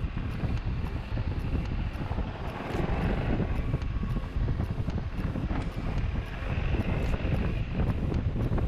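Wind buffeting an action-camera microphone on a moving motorcycle, over a low engine and road rumble that gusts up and down.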